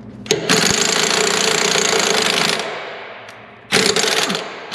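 Cordless impact tool run into a threaded bolt hole in a bulldozer's steel frame. It gives one long hammering burst of about two seconds that tails off, then a short second burst near the end.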